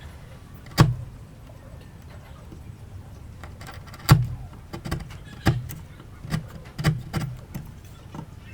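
Hand tools knocking on wood during joint cutting: one sharp knock about a second in, then a run of about seven knocks at irregular intervals in the second half.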